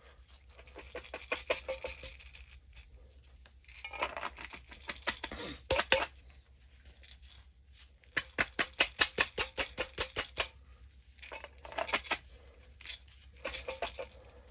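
Corn grain spawn shaken in a glass mason jar to break up the mycelium-colonized kernels: the loosened kernels rattle and click against the glass in several bursts of rapid shaking, the longest about eight to ten seconds in.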